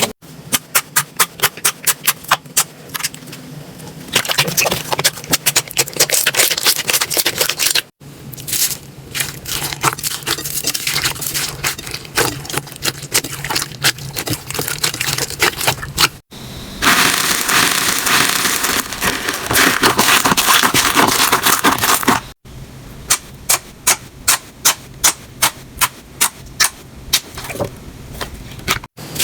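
Slime being squeezed and pressed, giving series of sharp pops and crackles. It comes in several short takes that cut off abruptly, with one stretch of denser, hissing crackle in the middle.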